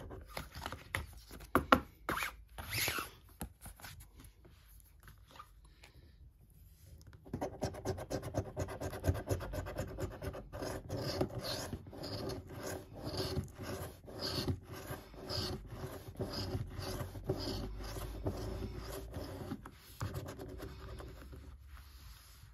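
A coin scratching the coating off a paper scratchcard. It goes in quick rubbing strokes, a few short spells at first, then steady fast scratching from about a third of the way in that stops shortly before the end.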